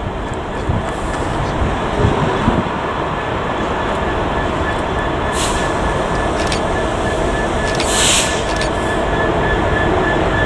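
Class 66 diesel-electric freight locomotive approaching with a freight train, its two-stroke EMD V12 engine running and its wheels rumbling on the rails, growing steadily louder. A thin steady whine comes in about two seconds in, and short hisses sound about five and eight seconds in.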